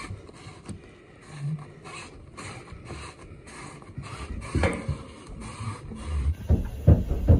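Firefighter breathing through an SCBA facepiece and regulator: a short hiss about twice a second, with low scuffs and knocks of gear under it. About six seconds in, the sound changes to a run of heavy thumps.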